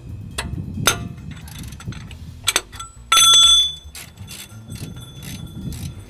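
Ratchet and 18 mm socket working a rear brake caliper bolt loose from below: scattered sharp clicks, then a loud metallic clink that rings briefly about three seconds in, followed by quicker ratchet clicking.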